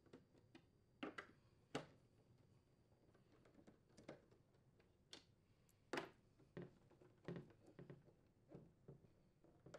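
Faint, scattered clicks and taps of a metal nut driver seating on and turning screws in a plastic ice maker cover, with the sharpest clicks about a second in, just under two seconds in and about six seconds in.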